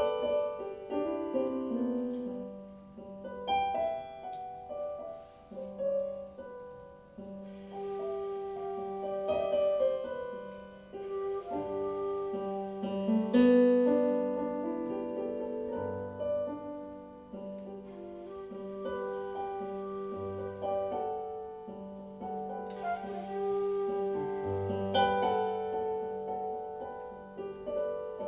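Digital stage piano playing chords under a flute carrying a slow melody of held notes.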